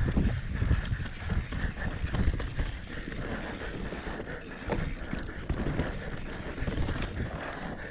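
Mountain bike running fast down a dirt forest singletrack: wind buffets the microphone over the rumble of tyres on dirt and leaves, with frequent short knocks and rattles from the bike over bumps.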